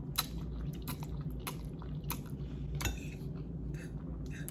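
Close-miked chewing of instant noodles, with a string of short wet mouth clicks every half second or so over a steady low hum.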